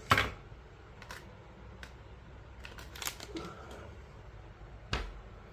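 Sharp clicks and taps of small tools and parts handled on a workbench during soldering work. The loudest click comes at the very start, a quicker run of clicks about three seconds in, and another sharp click near the end.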